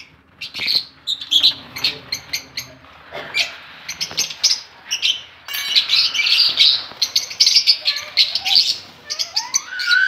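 A colony of lovebirds chirping, many short, sharp calls overlapping; the chatter grows denser and louder about halfway through.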